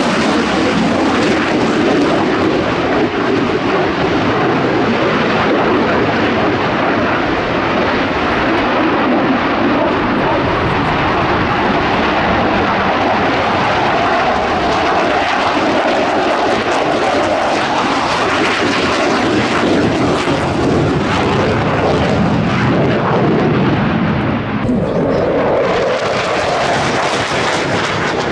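JF-17 fighter's single RD-93 turbofan, a loud continuous jet roar whose pitch shifts slowly up and down as the jet passes and turns overhead. The sound changes abruptly near the end.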